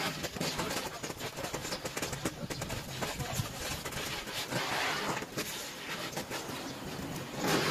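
Gas torch flame hissing steadily while it melts aluminium off an old brake shoe, with frequent small crackles. It swells louder about five seconds in and again near the end.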